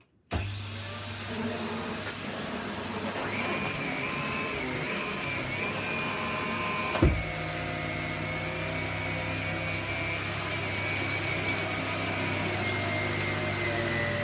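Vax Floors and All upright vacuum cleaner switched on a moment in, its motor whining up to speed and then running steadily. A single thump comes about halfway through, after which a deeper hum joins the whine.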